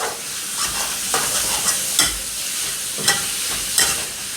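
Food sizzling in hot oil in a pan while being stir-fried, with a spatula scraping and knocking against the pan about once every second.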